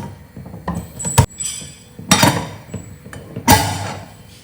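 Metal clanks and clinks from a steel pressure cooker being handled and closed, a few separate knocks with a short ring after each.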